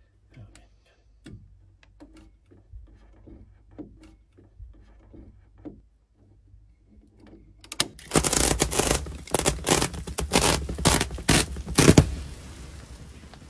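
Faint taps and knocks of handling, then a loud stretch of about four seconds of crackling and tearing: the plastic wrapping of a compressed bundle of R30 insulation batts being ripped open and pulled apart.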